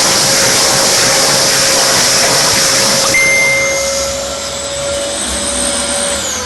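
Vacuum cleaner running and sucking up debris, a loud rush of air over a steady motor whine. About halfway through the rushing thins and a high whine rises in pitch. Near the end the motor's pitch starts to fall.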